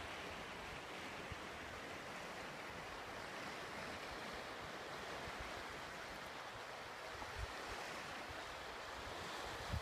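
Steady, even wash of sea surf breaking on the shore, with a couple of soft low bumps near the end.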